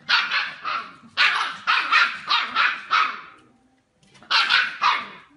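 Dog barking: a quick run of about ten sharp barks, a pause of about a second, then three more barks near the end.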